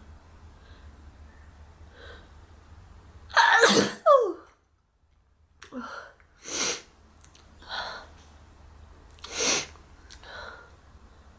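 A person sneezing once, loudly, about three and a half seconds in, the sneeze ending in a short falling vocal tail. It is followed by several shorter noisy breaths, the loudest about nine and a half seconds in.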